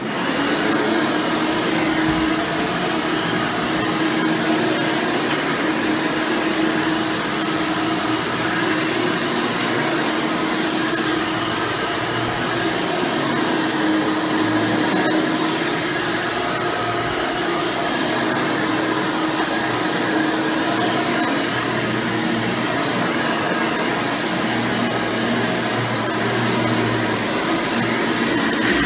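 Hoover Elite Supreme U5071-930 upright vacuum cleaner, with a 7-amp motor and a 20-blade fan, running steadily while vacuuming, with an even hum and a constant tone.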